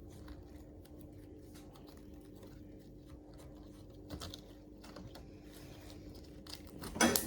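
Faint, scattered small clicks and sticky squishes of slime being worked by hand, over a steady low hum, with a slightly louder cluster of clicks about four seconds in.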